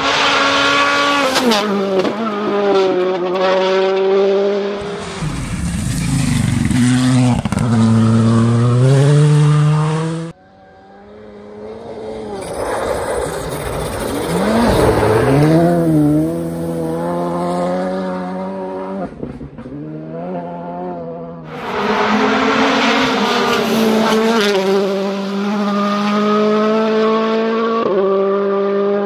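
Rally cars on test stages driven hard past the spectators, engines running at high revs, the pitch climbing and dropping sharply with each gear change. The sound cuts abruptly from one car to another a few times.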